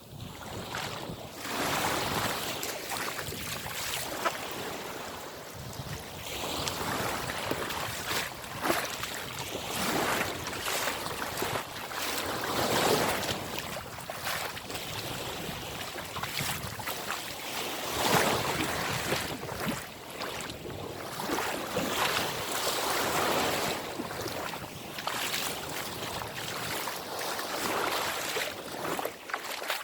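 Black Sea waves washing in and surging irregularly, with wind buffeting the microphone.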